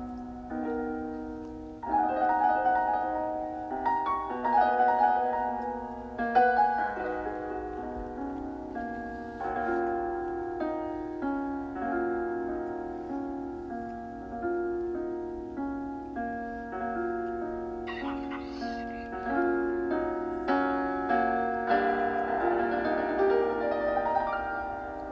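Background piano music, gentle and slow, with notes struck and left to ring.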